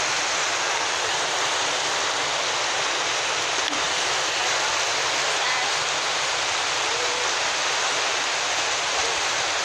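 Rain-swollen canal in flood, brown water rushing and churning past in a torrent: a steady, even roar of water that does not let up.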